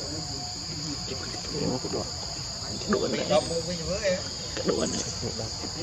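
A steady, high-pitched insect chorus drones without a break. Scattered short, lower-pitched sounds come and go from about a second and a half in until near the end, loudest around the middle.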